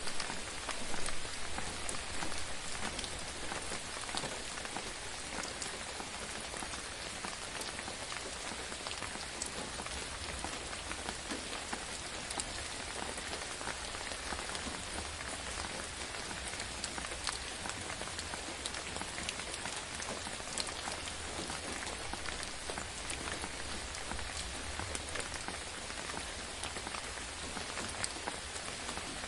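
Gentle rain falling steadily: an even hiss of rain on a surface with many small drop ticks scattered through it.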